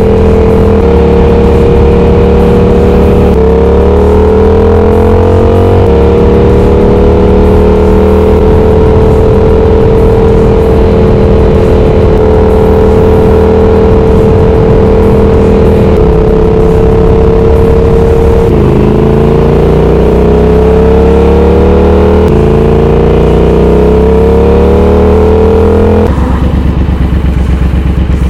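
Twin-cylinder motorcycle engine with cat-deleted, baffle-less exhaust, running under load: it holds a steady pitch for a long stretch, and in the last third its pitch rises, drops at a gear change and rises again as it accelerates.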